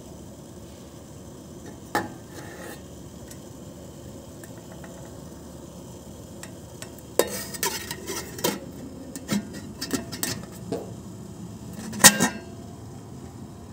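Clinks and clatter of a metal lid and pot being handled on a rice cooker: one click about two seconds in, a run of sharp clinks in the second half, and the loudest clank near the end as the lid is set on the inner pot.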